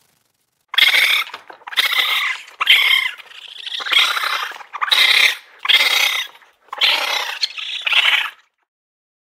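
Raccoon dog calling: about eight short calls, roughly one a second, stopping near the end.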